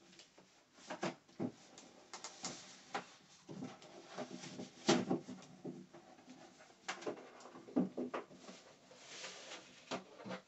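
Irregular rustling and soft knocks of garments being pulled onto a torso mannequin and handled on it.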